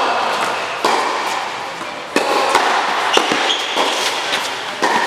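Tennis rally: a ball struck hard by rackets and bouncing on a hard court, sharp hits about once a second, each ringing on in the echo of a large indoor hall.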